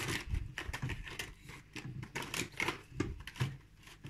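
Macramé cord rustling and scraping as hands pull strands through and tighten knots, a run of irregular short rustles.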